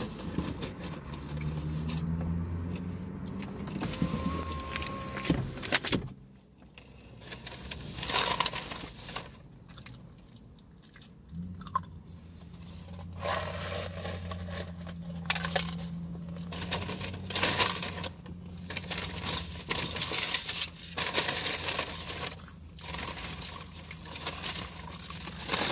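Rustling, clicking and scraping of food wrappers and containers being handled during a meal inside a car, over a low steady hum that stops about six seconds in and comes back about halfway through.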